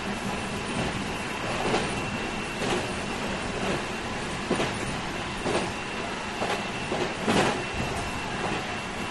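Meitetsu Series 3100 electric train running at steady speed: a continuous rumble of wheels on rail, with a knock about once a second as the wheels cross rail joints. A steady high whine sits above it, from the train's Mitsubishi IGBT-VVVF traction equipment, holding one pitch.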